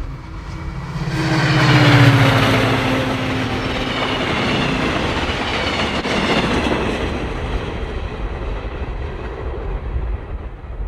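A train passing close by on the track: it grows loud to a peak about two seconds in, with a low hum whose pitch drops as it goes past, then a steady rush and clatter of wheels on rails carries on as the cars go by.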